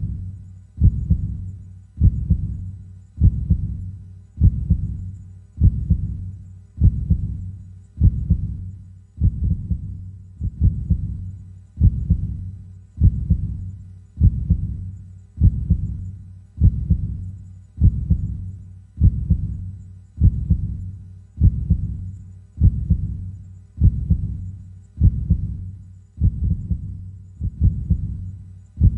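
Slow, steady human heartbeat: a low double thud, lub-dub, repeating about every 1.2 seconds, around 50 beats a minute.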